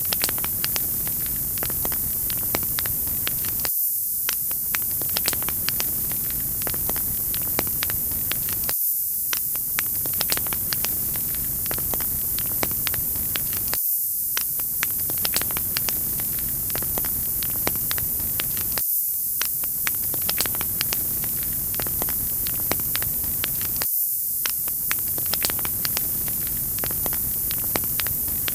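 Wood fire crackling, with frequent small pops over a steady hiss; the same short loop of about five seconds repeats over and over.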